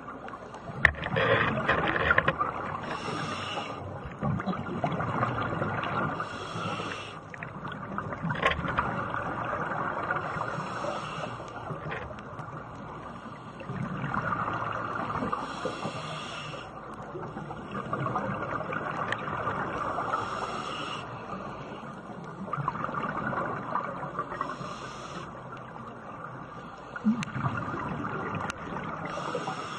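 A scuba diver breathing through a regulator underwater: a short hiss on each inhale, then a longer rush of exhaled bubbles, repeating about every four seconds.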